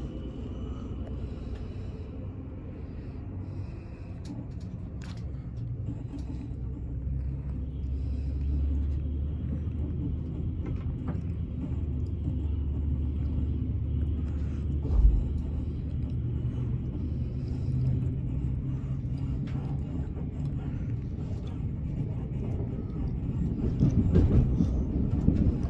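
Low rumble inside a carriage of an NSW TrainLink XPT as the train pulls away from the platform and gathers speed, growing louder over the stretch. There is a single thump about halfway through and a louder, rougher patch near the end.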